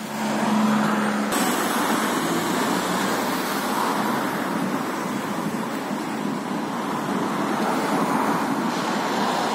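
Steady road traffic noise, an even rush that swells and eases slowly, with a low steady hum in the first second or so.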